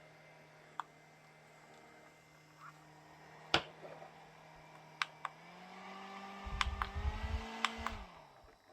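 Small handheld fan's motor humming steadily. After a click about five seconds in, its pitch rises as it speeds up and air buffets the microphone, with several more clicks. Near the end it winds down and stops.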